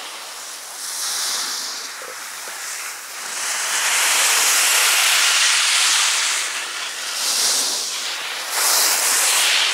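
Skis hissing and scraping over packed snow through a series of turns, the noise swelling and fading with each turn and loudest from about four to six seconds in.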